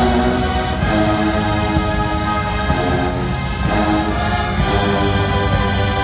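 Marching band playing, with held chords that change about once a second.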